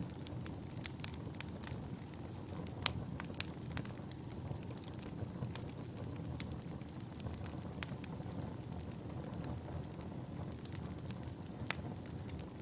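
Fireplace fire crackling: a steady low rush of flames with scattered sharp pops, the loudest about three seconds in and again near the end.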